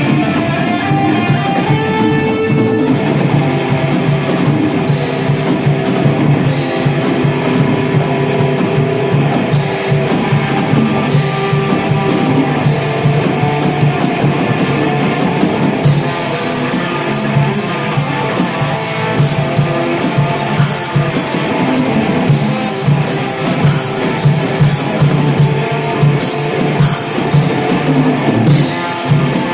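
Rock band playing live: guitars over a drum kit, with frequent cymbal hits.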